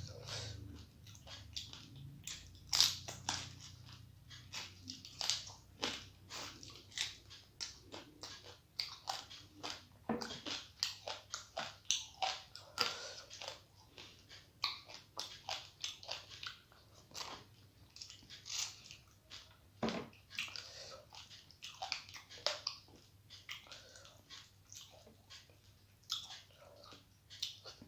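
A person chewing a meal of rice and curry close to the microphone: a continuous run of short mouth clicks and crunches, about two or three a second.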